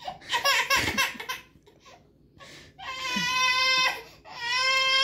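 Baby crying: short broken sobs in the first second or so, then after a brief pause two long, steady wails. The baby is upset over a pacifier that its twin has.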